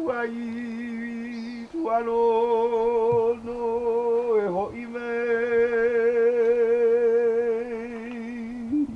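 A man's voice chanting a Hawaiian oli, holding long notes on one pitch with a strong wavering vibrato. The chant breaks briefly about two seconds in and again near the middle, where the voice dips before resuming.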